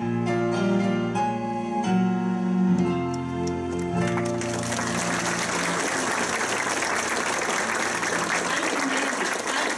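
A number's instrumental accompaniment closes on held final notes, then an audience breaks into steady applause from about four seconds in.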